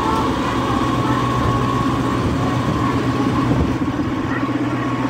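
TU-7A narrow-gauge diesel locomotive running steadily as it pulls its train slowly past at close range: a continuous engine hum.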